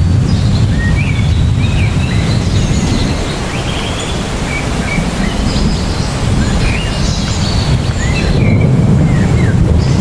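Heavy rain falling on trees, a steady wash of noise with a low, uneven rumble underneath. Birds chirp in short rising and falling calls again and again over the rain.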